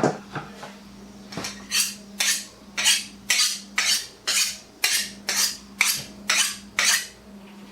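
A cleaver blade making about a dozen quick metal scraping strokes, evenly paced at roughly two a second, typical of honing the blade before chopping. A steady low hum lies underneath.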